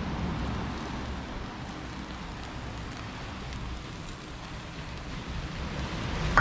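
Steak sizzling on a charcoal grill as garlic-pepper butter sauce is poured over it: a steady hiss with a few small crackles from the fat hitting the hot coals.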